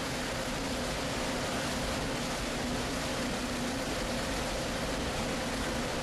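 Steady industrial noise of a rotary cement kiln and its plant machinery: an even rushing noise with a low hum and a constant mid-pitched whine, unchanging throughout.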